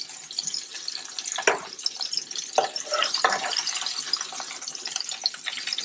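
Chicken thighs sizzling in hot olive oil in a pan, a steady crackling hiss, with a few light clicks of metal tongs as the seared pieces are lifted out.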